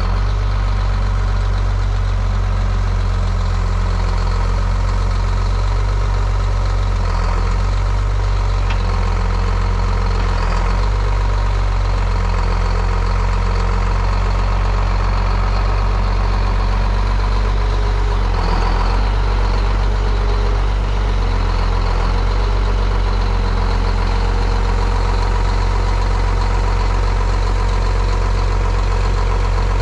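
Log truck's diesel engine running steadily, powering the hydraulic knuckleboom loader mounted on the truck as it loads logs. The engine note shifts briefly a few times as the loader works.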